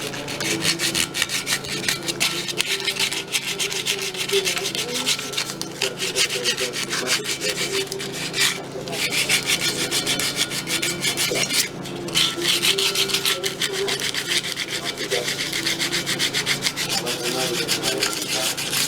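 Sandpaper rubbed by hand over a car wheel rim in rapid back-and-forth strokes, a steady scratchy rasping with two short pauses partway through.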